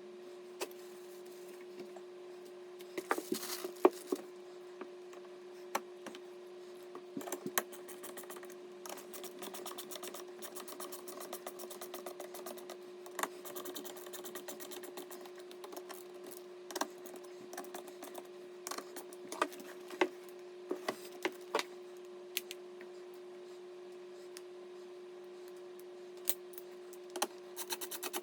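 Small clicks, taps and rattles of computer parts being handled and fitted, with a run of fast ticking in the middle, over a steady hum.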